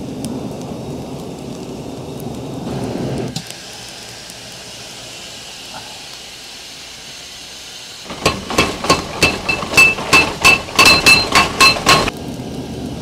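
Forge fire giving a steady rush that drops away about three seconds in. About eight seconds in comes a quick run of some fifteen hammer blows on a white-hot steel billet on the anvil, each ringing metallically, speeding up slightly before they stop.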